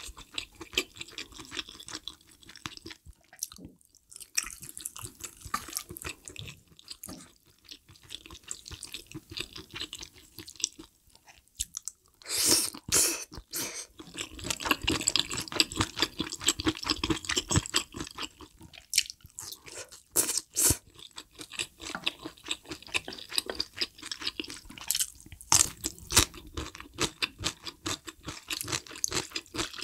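Close-miked mouth sounds of chewing and crunching spicy hot-pot ingredients: vegetables, greens and meat from malatang and malaxiangguo. A few louder crunches or bites come about twelve, twenty and twenty-five seconds in.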